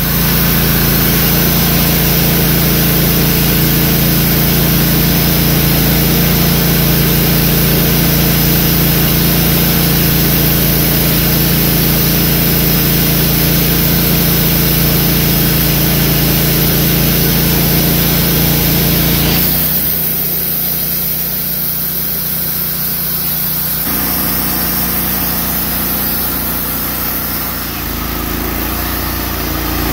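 Wood-Mizer LT15 GO band sawmill running under power as its blade saws along a log, with a steady engine note. About two-thirds of the way through the sound drops in level and changes, and it shifts again near the end.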